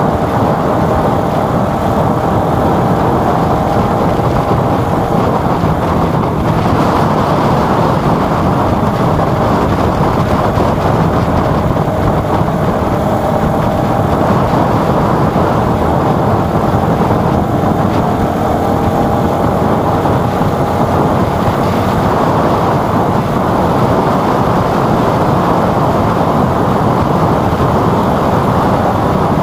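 Steady rush of wind over the microphone and road noise while riding along a street, with a faint engine hum underneath.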